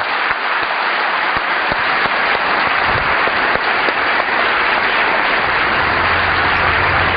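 A large auditorium audience applauding steadily.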